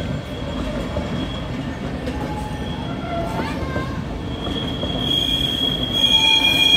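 Flixtrain passenger coaches rolling past with a steady low rumble of wheels on rail. From about four seconds in, a high, steady metallic squeal from the wheels sets in and grows louder toward the end.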